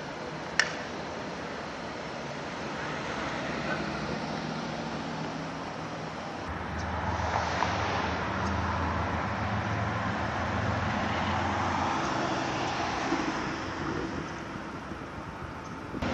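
Mercedes-Benz G550 SUV driving by on a city street over steady traffic noise, its engine hum swelling about seven seconds in and easing off near the end. A short sharp click sounds just after the start.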